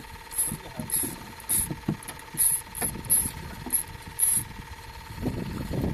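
A motor running with a steady whine, under irregular knocks and rattles about two or three a second, each with a short hiss, and a denser burst of rumbling near the end.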